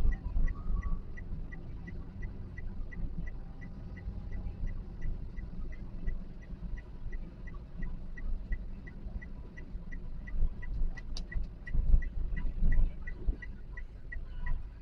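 Car indicator ticking steadily, about three clicks a second, over a low engine and road rumble inside a Toyota Calya's cabin.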